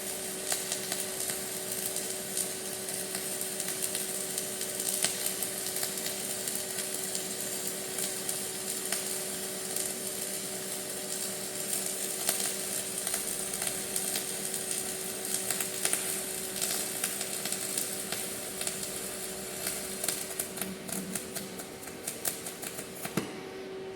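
Flux-cored arc welding with E71T-1 tubular wire on a Kemppi FastMig X450: the arc crackles and sizzles steadily as the capping pass is laid, over a steady hum. The arc cuts off about a second before the end.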